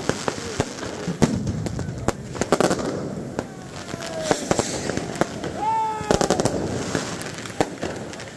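Fireworks and firecrackers going off in quick, irregular succession, many sharp bangs and cracks, with people's voices shouting between them, loudest just before the middle.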